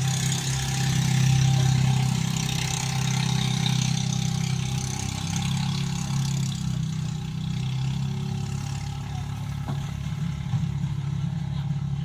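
An engine running steadily at idle: a low, even hum with hiss above it.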